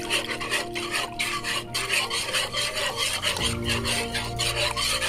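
Wire whisk scraping round a pot through a thick, creamy soup mixture, in quick rhythmic strokes, a few a second.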